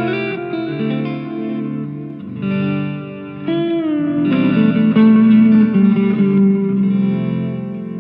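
Electric guitar, a Squier Jazzmaster, played through a board of hand-wired effect pedals into a Fender Tonemaster Deluxe Reverb amp: ringing chords and notes with light overdrive. About three and a half seconds in, the notes bend down in pitch, and a fuller chord rings out after that.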